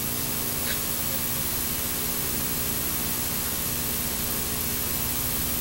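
Steady hiss with a faint steady hum underneath: background noise of an old videotape recording, with no distinct event.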